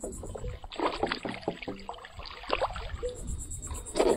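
Water splashing and sloshing around a fishing paddleboard, with scattered knocks and clicks of gear bumping on the board while a hooked snook is fought at the side.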